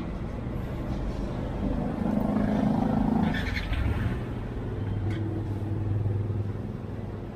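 A motor vehicle engine running, growing louder from about two to four seconds in and then settling back.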